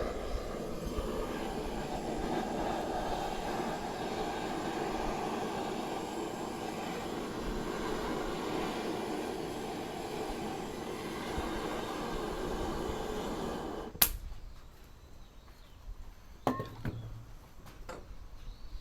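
Gas torch burner running with a steady rushing hiss while lighting bamboo kindling, shut off suddenly with a click about fourteen seconds in. A few faint clicks follow.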